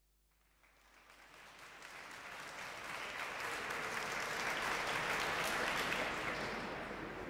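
Audience applauding, fading in over the first few seconds, swelling to its loudest about five seconds in, then easing off.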